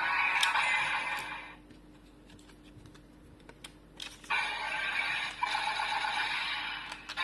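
Electronic sound effects and music playing from a DX Kamen Rider toy belt's small speaker. They stop about a second and a half in, leaving a few plastic clicks from the toy being handled, then start again about four seconds in.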